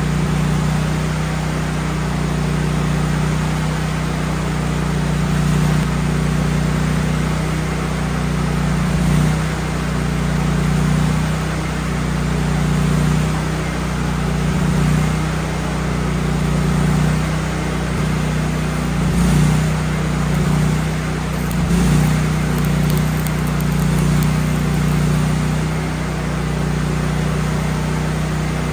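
The gas engine of a Miller Bobcat 250 engine-driven welder running steadily, with a steady hiss over its low hum.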